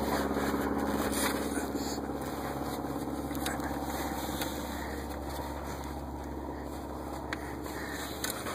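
An engine idling steadily, with a few light clicks on top.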